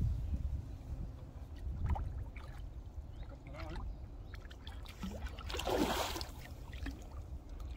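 A large fish splashing at the surface of a pond, with one loud burst of splashing about six seconds in, over a low rumble.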